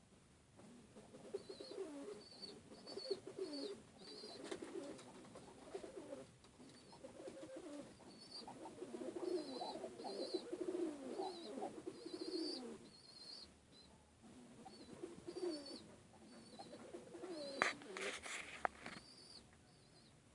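Domestic pigeons cooing over and over, with short high chirps repeating in the background. A few sharp knocks come near the end.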